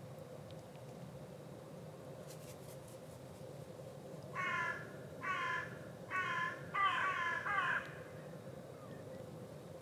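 A crow cawing four times in quick succession, about one call every 0.8 s, the last call longer and broken. A faint steady low rumble runs underneath.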